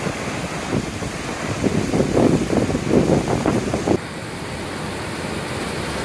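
Swollen river rushing over rocky rapids, a steady loud roar of water. Wind buffets the microphone in heavy gusts through the middle and stops abruptly about two-thirds of the way through.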